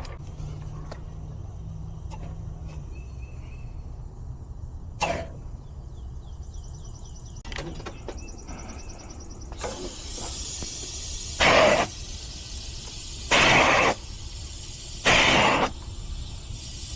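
Refrigerant line set being flushed by forcing flush solvent through it with pressurized gas: a single knock about five seconds in, then a steady hiss from about ten seconds in, broken by three loud blasts of rushing gas about a second and a half apart.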